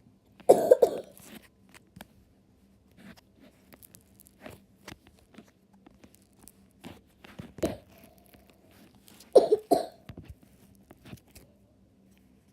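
Floam slime being squeezed and poked, with scattered small crackles and clicks from the foam beads. Two louder, short double bursts come near the start and about nine seconds in.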